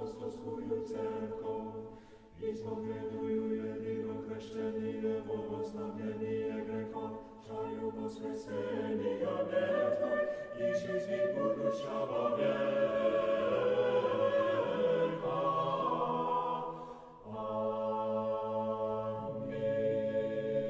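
Choral music: a choir singing long held chords, growing fuller and louder in the middle.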